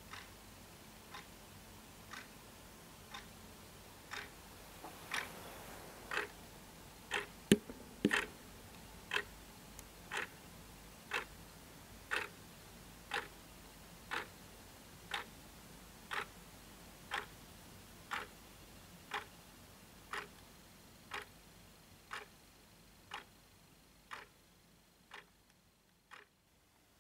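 Clock ticking steadily, once a second, growing louder over the first few seconds and fading near the end, with one sharper, louder click about seven and a half seconds in.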